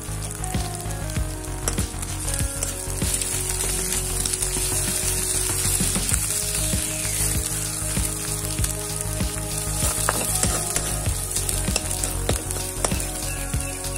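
Egg sizzling as it fries in oil in a metal wok, with a spatula scraping and clicking against the pan as it is stirred and broken up.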